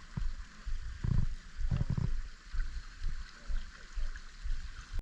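Stream water running steadily, with irregular low thumps and rumbles over it about every half second.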